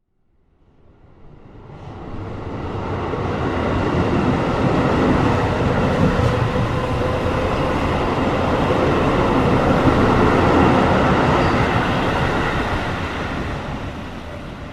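Train running on the rails, a dense rumble with a faint steady whine above it. It swells from silence over the first few seconds, holds, and dies away near the end.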